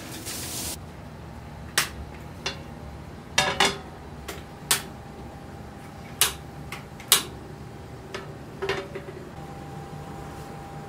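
Kitchen utensils clicking and knocking against pots and pans, several sharp separate strikes spread out, after a brief hiss at the start; a faint steady hum comes in near the end.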